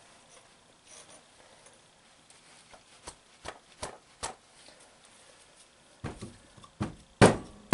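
Metal parts of a Delco CS-130 alternator clicking and knocking together as its housing halves are fitted back over the rotor and stator by hand. A few light clicks come first, then a quick run of sharper knocks, the loudest near the end.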